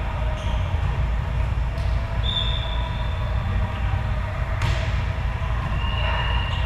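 Big-gym ambience over a steady low rumble, with sneakers squeaking on the court floor twice and a single sharp smack of a volleyball being struck about four and a half seconds in.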